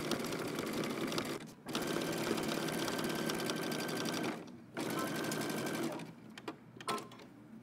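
Domestic sewing machine stitching a narrow zigzag seam through knit fabric, running at a fast, even pace in three runs, with short stops about one and a half and four and a half seconds in. It stops about six seconds in, and only a few faint clicks follow.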